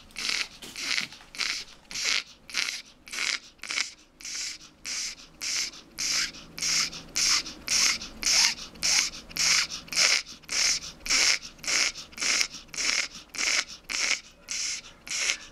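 Old Pomeranian panting hard with its mouth open, in rapid, labored breaths at about two a second. The dog struggles to breathe because of severe bronchial stenosis.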